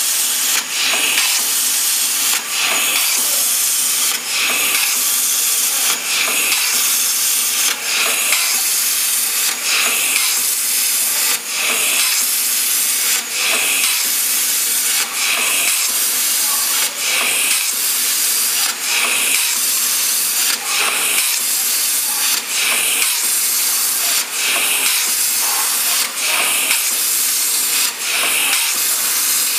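CNC plasma cutter's arc hissing loudly as it cuts small round holes in stainless steel sheet. The hiss breaks off briefly and restarts about every second and a half to two seconds.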